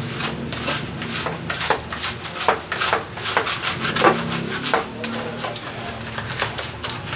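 Brisk scraping strokes by hand, about four a second, thinning out after about five seconds.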